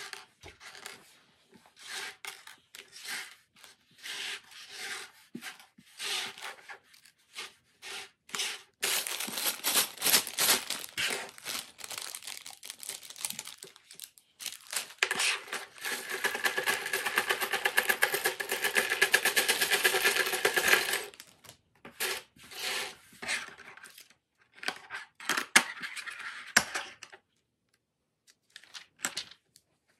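LEGO pieces click and rattle against each other and the table as they are sorted. From about a third of the way in comes a long stretch of thin plastic parts bag crinkling and rustling, loudest in the middle, as a bag of bricks is handled and emptied out. Scattered clicks of pieces follow near the end.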